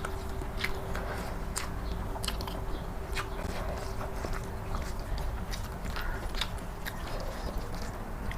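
Close-miked chewing and biting while eating egg curry, with irregular wet mouth clicks and smacks.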